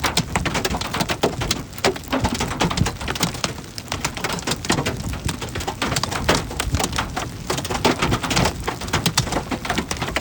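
Heavy rain striking in dense, irregular drops, over a steady low rumble.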